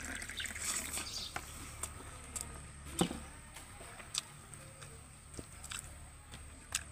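Person eating: scattered short wet clicks and smacks of chewing and mouth sounds, the sharpest about three seconds in, over a steady low hum.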